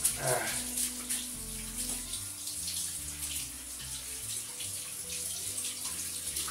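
Kitchen tap running into the sink while hands are rinsed under the stream, washing off sticky dough.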